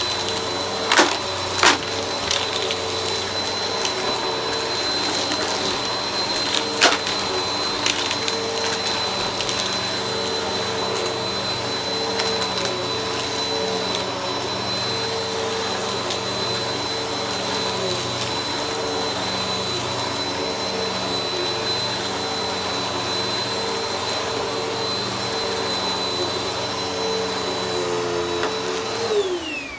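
Vacuum cleaner running steadily with a high whine, with a few sharp clicks in the first seven seconds. Just before the end it is switched off and the motor winds down, its pitch falling.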